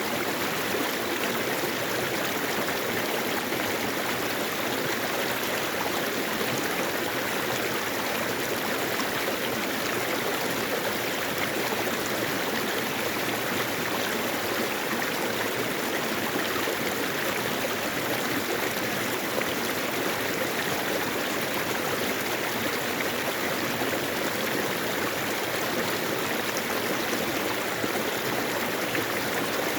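Mountain stream running steadily over rocks, an even rushing and gurgling of water.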